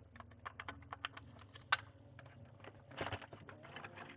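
Irregular small plastic clicks and taps of laptop parts being handled, as ribbon cable connectors are seated on a Dell laptop motherboard, with one louder click near the middle and a quick cluster of taps near the end.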